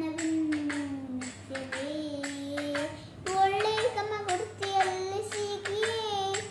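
A young girl singing a song, her voice holding and sliding between long notes, with sharp regular beats behind it.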